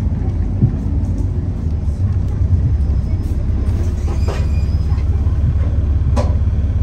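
Alexander Dennis Enviro400 double-decker bus heard from inside while under way: a steady low engine and road rumble, with a couple of brief rattles about four and six seconds in.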